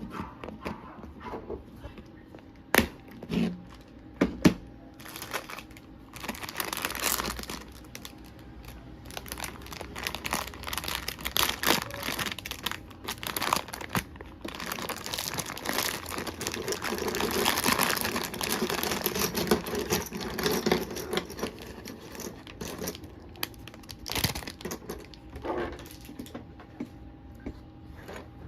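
Packaging being crinkled and torn open by hand, with a few sharp knocks in the first few seconds.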